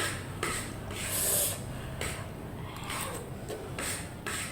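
A person eating spicy instant noodles: a series of short, irregular slurping and sharp breathing noises.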